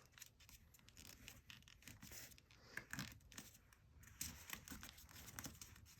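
Faint rustling and creasing of a sheet of printer paper being folded by hand, with scattered small crinkles and taps.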